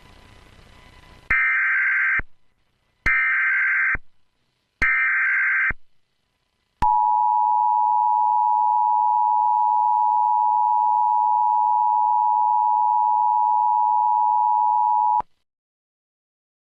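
Emergency Alert System broadcast tones. After faint hiss come three short bursts of screechy data tones from the SAME header, about a second long and evenly spaced. Then the EAS two-tone attention signal, a harsh steady dual tone, is held for about eight seconds and cuts off sharply.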